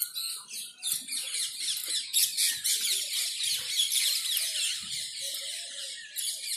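Many small birds chirping at once: a dense, continuous high-pitched chatter of overlapping short calls.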